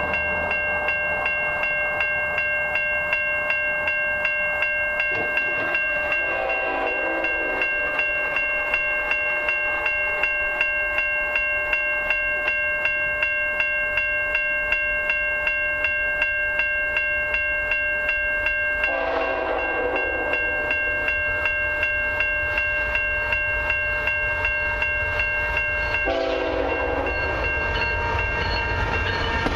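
Level-crossing warning bell ringing steadily with evenly spaced strikes as a CN freight train approaches. The train's locomotive horn sounds its chord three times: a long blast about six seconds in, another about nineteen seconds in, and a third starting near the end as the lead locomotive reaches the crossing.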